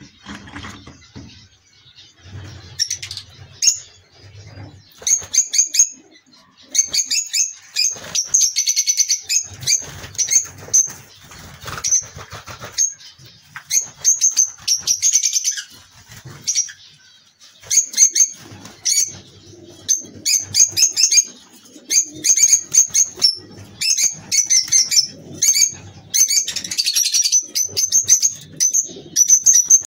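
Lovebirds chirping: quick runs of shrill, sharp calls with short pauses between, getting busier after the first few seconds.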